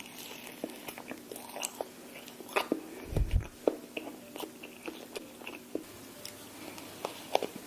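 Close-miked eating: bites into soft cloud bread and chewing, with many small sharp clicks, and one low thump about three seconds in.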